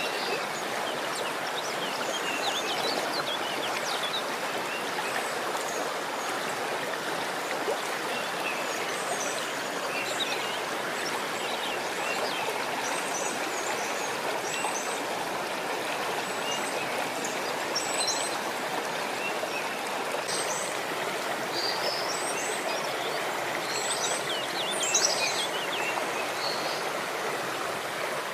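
Steady rush of running water, with short high bird chirps scattered throughout.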